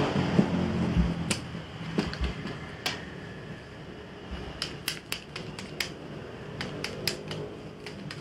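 Domino playing cards being gathered and handled on a tabletop: a scatter of sharp clicks and taps, crowded together in the second half, over a low steady room hum.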